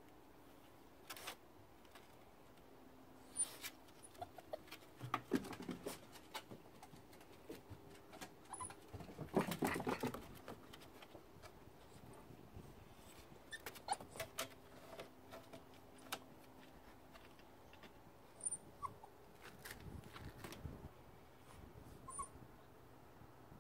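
Corgi puppy moving about on wooden deck steps: scattered light taps and scrabbles of its paws and claws on the wood, busiest about nine to ten seconds in, with a few faint puppy whimpers.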